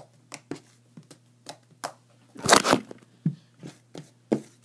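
Fluffy butter slime being pressed and squished by hand on a tabletop: a run of short sticky pops and clicks, with one louder, longer squelch about two and a half seconds in.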